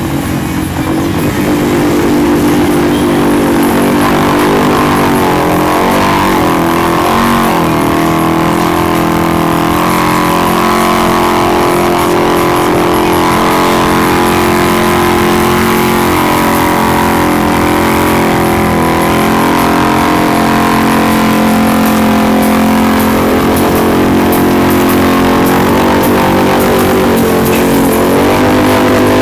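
Polaris RZR side-by-side's engine running at steady high revs while stuck deep in mud, its wheels churning; the pitch dips and wavers briefly now and then.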